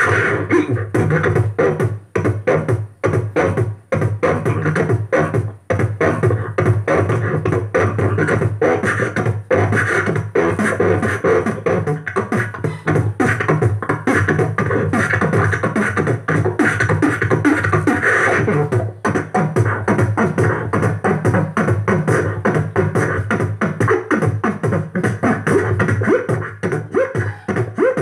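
Man beatboxing into a handheld corded microphone: fast, continuous drum-like mouth percussion, with a few short breaks in the first six seconds.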